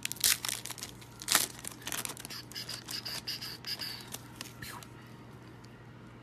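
Foil wrapper of a 2017 Panini Chronicles baseball card pack torn open and crinkled as the cards are pulled out. Sharp tearing crackles come in the first second and a half, then softer crinkling dies away about five seconds in.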